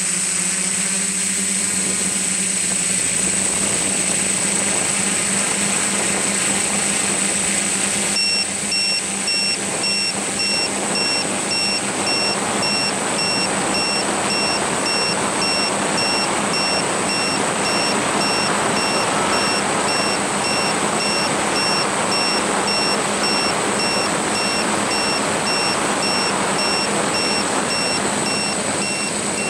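Electric motors and propellers of a small RC aircraft running steadily in flight, heard from the onboard camera, with a constant hum and a high whine. From about eight seconds in, a regular electronic beep joins, about twice a second.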